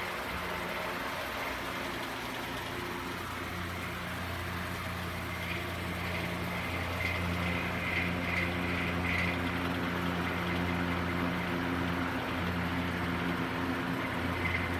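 Steady low mechanical hum of a running motor or engine, holding one even pitch throughout. About halfway through, a short run of faint, high, repeated chirps sounds over it.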